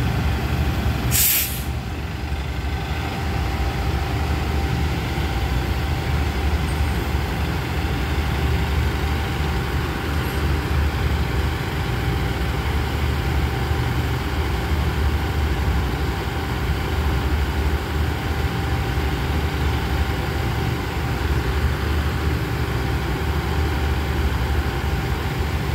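Stationary diesel multiple-unit train idling, a steady low rumble with a faint constant whine. About a second in, a short sharp hiss of air, typical of the air brake system venting.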